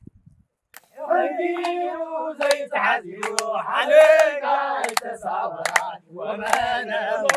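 A group of voices singing a chant together, starting about a second in, with sharp claps cutting in now and then and a brief break near the end.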